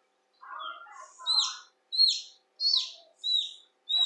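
Leghorn chick peeping loudly from its pipped egg while being helped out of the shell: about five shrill, downward-sliding peeps in a steady run, roughly one and a half a second, starting about a second in.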